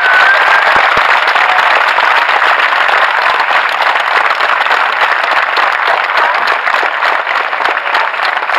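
A large audience applauding, with one pair of hands clapping close to the microphone; the applause eases off slightly toward the end.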